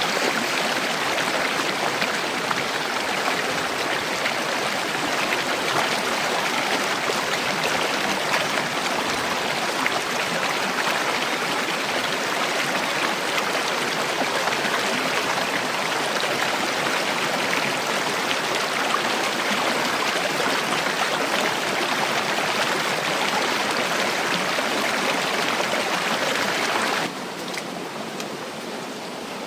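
Steady rush of flowing stream water, with no words over it. The sound drops suddenly to a quieter level near the end.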